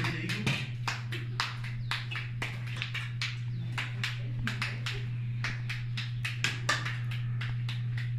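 Wood fire crackling, with irregular sharp pops and snaps, over a steady low hum.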